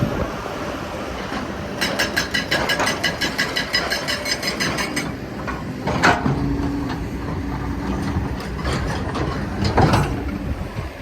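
Kobelco excavator's diesel engine running, with a fast, even metallic clatter from about two to five seconds in and two loud knocks with scraping about six and ten seconds in, typical of rock striking the bucket or dumper body.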